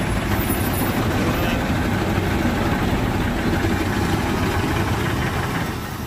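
Volvo articulated dump truck's diesel engine running steadily under load as it churns through deep mud, with its wheels throwing up mud and sand.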